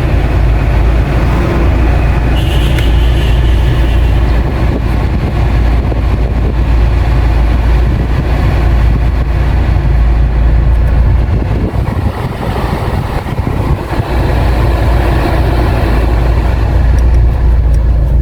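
Car engine running steadily, with a heavy low rumble.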